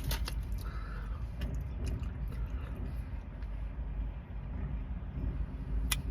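Steady low rumble of a car's cabin with the engine running, broken by a few sharp clicks and soft rustles near the start and again near the end.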